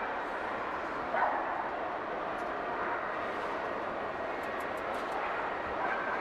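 A dog barks once, about a second in, over the steady murmur and noise of a large, crowded hall.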